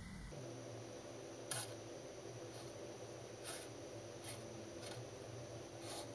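Hobby knife blade cutting along the edge of a thin vacuum-formed plastic sheet: faint short scratches about once a second, the loudest about a second and a half in.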